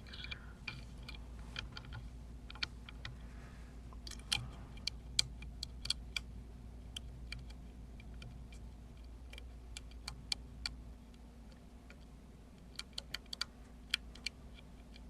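Small, sharp metallic clicks and ticks, irregularly spaced, as a lock pick works the pin stacks of an Emhart lock cylinder under tension. There is a quick run of four clicks near the end.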